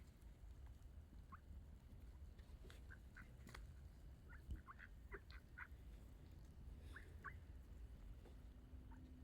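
Faint, short bird calls scattered through, most bunched together near the middle, over a low steady rumble.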